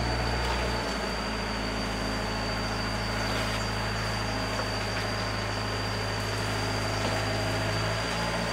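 Diesel engine of a Hyundai wheeled mini excavator running steadily as it digs and loads soil into a dump truck, a continuous low drone whose note changes about a second in.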